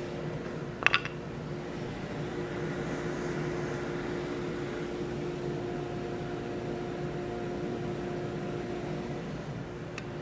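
Coal forge's air blower running with a steady hum, feeding the fire while the iron heats to forging temperature. A couple of light metal clinks about a second in.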